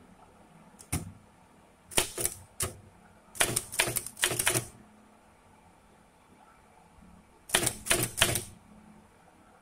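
Typewriter typebars striking the platen in short runs of key clicks: a single strike, then a few, then two quick bursts of typing with pauses between.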